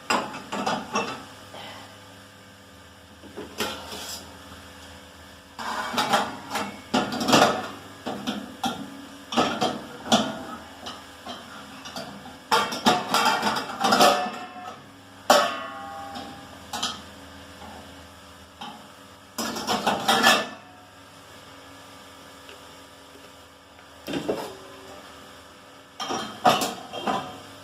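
Plates clattering and knocking against each other and the wire rack as they are set into a dishwasher's lower rack, in irregular bunches with a brief ring from a plate now and then.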